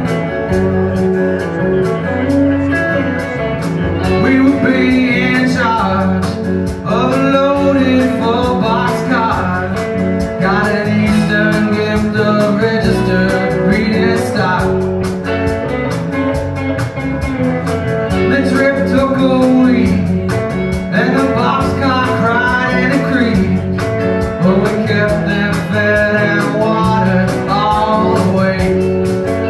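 Live country-rock band playing a song: acoustic and electric guitars over a drum kit, with a melodic line that comes and goes over the accompaniment.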